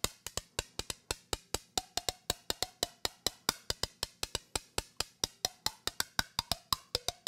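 Rapid, even clicking, about eight sharp clicks a second, from a small hand-held object played at the lips, with a faint tone behind the clicks that shifts in pitch.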